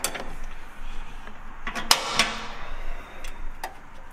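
A handful of sharp clicks and knocks, the loudest about two seconds in, from hands working the knobs and levers on the dash of a 1960 Oliver OC-46 crawler loader. The engine is not yet running.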